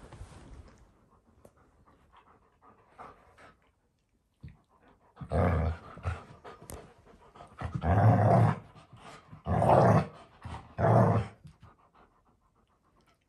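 An Alaskan Malamute and a golden retriever puppy tugging a plush duck toy between them. About five seconds in come four loud, rough bursts of dog breath and vocal noise, each under a second long, with quieter scuffling between.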